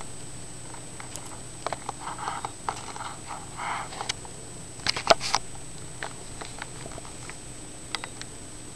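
Hamster gnawing and cracking a seed: scattered small crisp clicks and short scratchy rustles, busiest in the first half, with a quick cluster of louder clicks about five seconds in.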